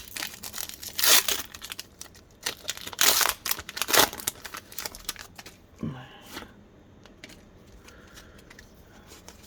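Pokémon card booster pack wrapper being torn open and crinkled: several sharp rips in the first four seconds or so, then quieter rustling as the pack is handled.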